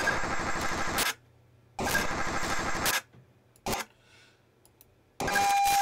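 ReFLEX two-way paging data transmissions heard over a radio. First come repeated raspy digital bursts about a second long with short gaps, the pager sending sync pulses to call out to the tower. About five seconds in, a louder burst with a steady tone begins: the tower's acknowledgement on a paging channel.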